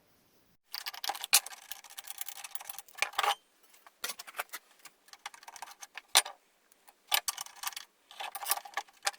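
Rapid metallic clicking and rattling in four short runs with brief pauses between: tools and metal parts being worked while changing the blade on a homemade table saw.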